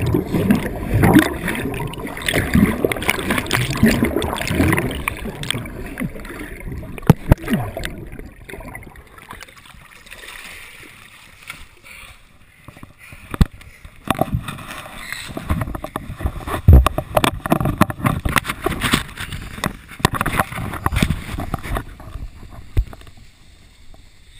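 River water splashing and gurgling around the camera, then irregular knocks and bumps from about halfway on as the wearer climbs out over wet rocks.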